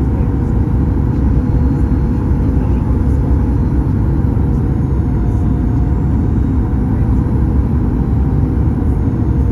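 Steady, loud rumble inside the cabin of a Boeing 737 MAX with its CFM LEAP-1B jet engines running, a faint even hum riding over the roar.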